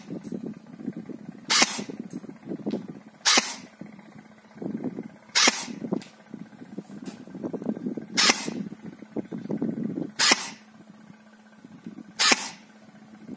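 A&K M4 airsoft electric gun firing single shots through a chronograph for a muzzle-velocity test: six sharp shots about two seconds apart.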